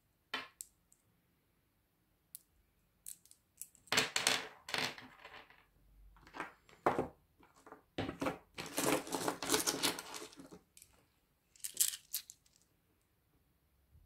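Small stones clicking as they are set down on a hard tabletop one at a time, then several longer stretches of pebbles clattering and clacking together as a handful is gathered and handled.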